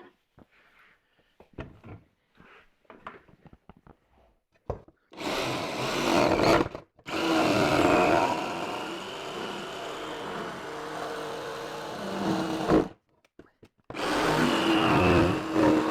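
A few light knocks and clicks of handling, then a power tool runs in three stretches with short stops between, a brief one, a long one of about six seconds, and another near the end, cutting a dust-collection hole through the wooden top.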